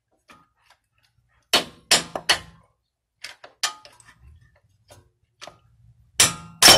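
Metal clanks of a 2.5-pound hammer striking a pry bar to drive a seized, rust-stuck inner CV axle joint out of a 2013 Mini Cooper Countryman's transmission. Three sharp blows come about a second and a half in, then lighter taps, and the loudest, ringing clank comes near the end.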